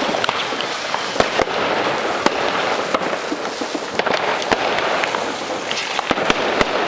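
Many fireworks going off at once: a dense continuous crackle with frequent sharp bangs of rockets and firecrackers.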